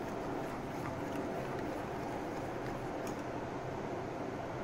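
Hand wire whisk beating thick cake batter in a glass bowl, mixing in food colouring: a steady swishing with a few light clicks against the glass.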